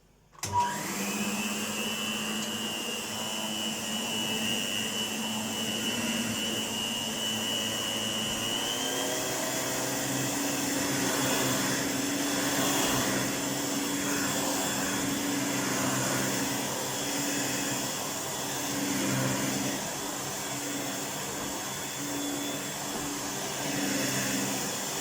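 1988 Electrolux 612 upright vacuum cleaner's 560-watt motor switched on about half a second in and spinning up to a steady whine over a low hum. Around eight seconds in its pitch shifts upward, and it then runs steadily with slow rises and falls in level. The freshly restored motor sounds like a new cleaner.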